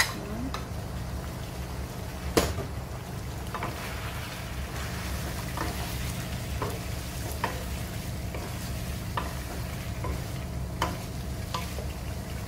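Chicken adobo sizzling in a nonstick pan while a wooden spatula stirs it, knocking lightly against the pan about once a second, with one sharper knock a couple of seconds in. A steady low hum runs underneath.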